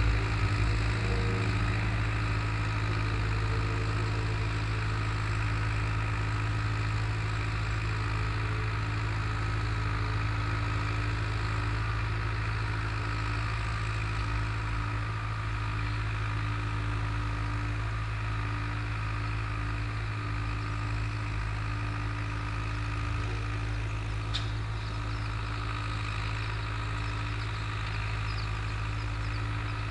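Long 900 tractor's four-cylinder diesel engine running at a steady speed while pulling a disk harrow, with one brief click about three quarters of the way through.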